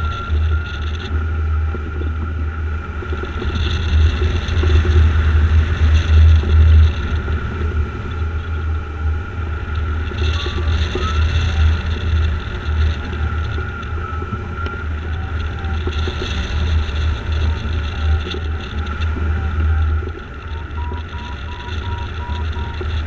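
Wind rushing over the camera microphone of a hang glider in flight: a heavy low rumble that surges and eases. A faint steady high tone runs underneath and breaks into short beeps near the end.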